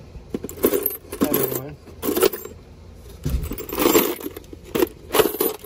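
Loose metal screws, washers and wing nuts jangling and clinking in a plastic tub as a hand sifts through them, in several short bursts.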